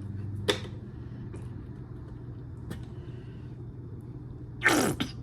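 Squeeze bottle of ketchup squirting with a short sputter near the end, over a steady low hum and a sharp click about half a second in.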